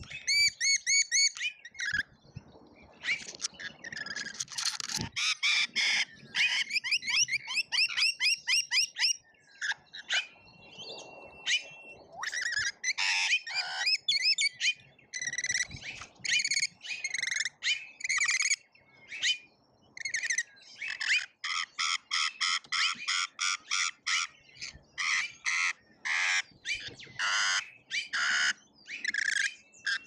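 Rainbow lorikeets screeching and chattering in quick runs of short, harsh calls, one after another with only brief pauses.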